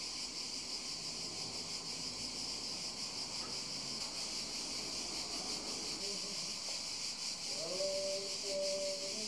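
Steady, high-pitched chirring of crickets or similar insects. From about six seconds in, a few held tones that step in pitch join it.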